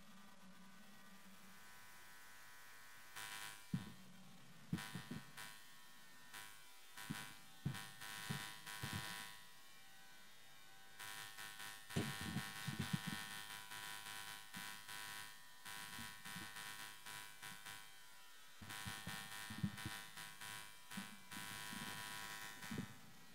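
Steady electrical buzz and hum from a stage sound system with nobody speaking, with irregular short low knocks and rustling noises now and then, busiest in the second half.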